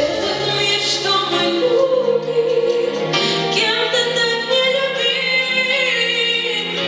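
A girl singing a song with instrumental accompaniment, holding long notes.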